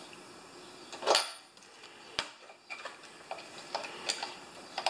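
Socket wrench and spark-plug socket clinking and clicking as a lawn mower's spark plug is snugged down: a louder clatter about a second in, a sharp click about two seconds in, then light scattered ticks.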